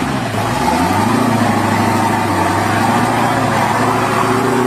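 Rock crawler buggy's engine revving hard under load as it claws over creek boulders. The pitch dips at the start, climbs about half a second in and holds high and steady.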